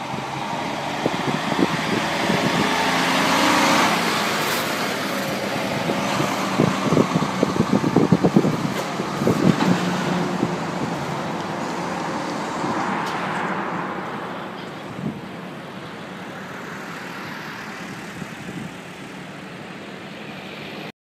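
Nissan Diesel prime mover pulling a multi-trailer road train drives past. The diesel engine and the rush of many tyres build up, then the trailers rattle and clatter as they roll by, and the sound fades as the rig draws away.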